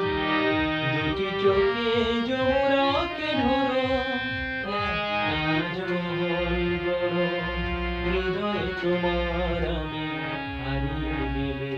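Harmonium playing the closing instrumental passage of a Bengali song: held reed chords under a moving melody, with a steady low drum beat.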